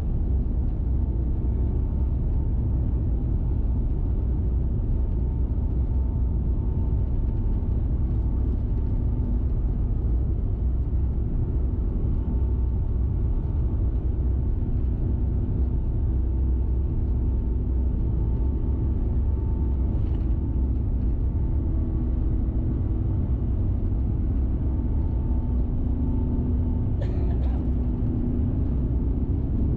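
Steady low rumble of engine and airflow noise inside the passenger cabin of an Airbus A350-1000, with faint steady hums over it and a brief click near the end.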